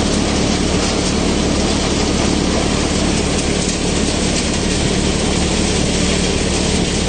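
Multicrop thresher running steadily while threshing groundnuts: a constant loud machine drone, with the rushing rattle of pods pouring from its outlet chute.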